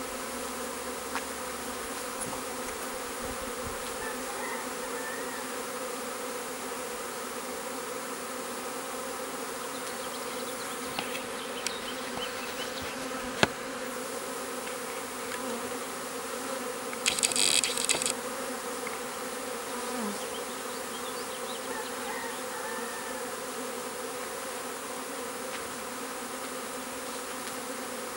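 A honeybee swarm buzzing steadily as it clusters on and moves into a swarm trap, an even hum of many wingbeats. A single sharp tick comes about halfway through, and a brief louder high-pitched rattle lasts about a second a little later.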